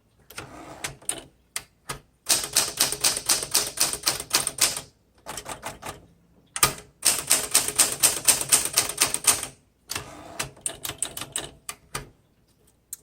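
1968 Smith Corona Super Sterling manual typewriter being typed on: runs of quick key clacks as the typebars strike, with short pauses between runs and some stretches struck more softly than others.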